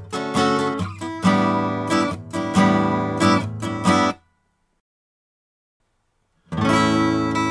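Guitar strumming chords, recorded through a Dave Hill Designs Europa 1 microphone preamp set to medium slew rate with added even and odd harmonics. The playing stops about four seconds in, and after two seconds of silence the strumming starts again with the preamp at its extreme settings.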